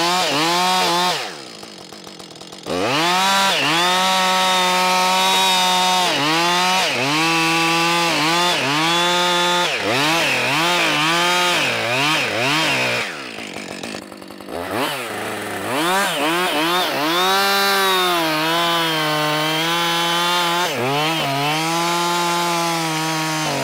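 Two-stroke gas chainsaw running at high throttle while cutting wood, its pitch sagging and recovering again and again as the chain loads up in the cut. Twice it drops back to a brief low idle, about a second in and again around halfway.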